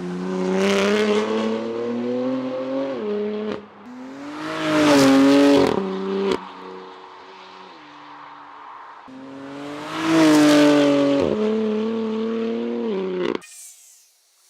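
BMW M2 Competition's twin-turbo S55 straight-six, through a valved equal-length Valvetronic Designs catback exhaust, revving hard in two loud pulls that peak about five and ten seconds in, the pitch rising and then dropping sharply after each. It cuts off shortly before the end.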